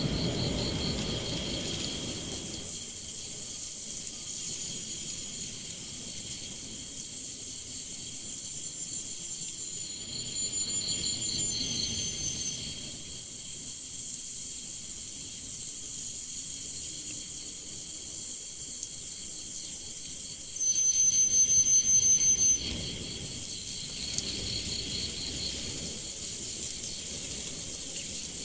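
Insects calling in a steady chorus: high, rapidly pulsed trills over a constant hiss. About 21 seconds in, a louder, higher pulsed insect call starts up, runs for about two seconds, then stops abruptly.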